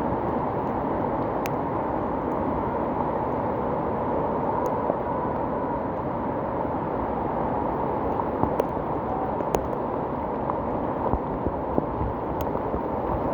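A swollen mountain river in flood, rushing steadily, with a few sharp knocks scattered through it.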